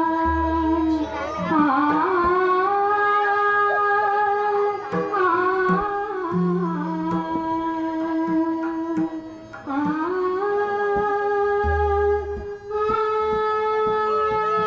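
Marathi bhajan: a woman's voice singing a long, drawn-out wavering line over harmonium notes that are held steady, with the held pitch stepping up about ten seconds in.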